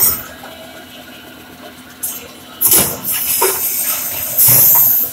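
Net sealing and cutting machine running with a steady hum, broken by sudden hissing bursts and knocks as it cycles. The longest and loudest hiss comes near the end.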